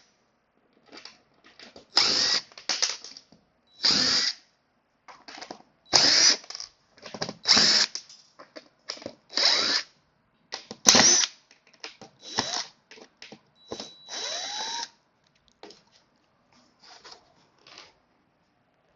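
Power drill/driver running in short bursts of about a second or less with pauses between them, backing screws out of an auditorium seat back to free its brackets. One longer run near the end carries a rising whine.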